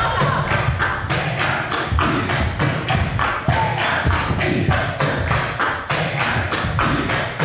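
Music with a fast, steady percussion beat of about four sharp knocks a second.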